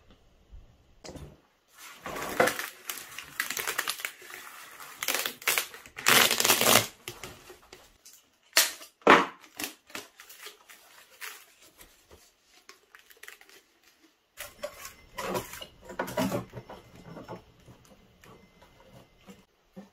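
Aluminium flexible duct crinkling and crunching as it is squeezed and bent, in irregular bursts, with two sharp snaps near the middle.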